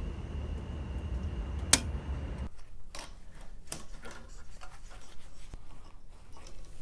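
Small handling noises of work on the ceiling fixture: scattered clicks, scrapes and rubbing. A steady low rumble under the first couple of seconds cuts off suddenly.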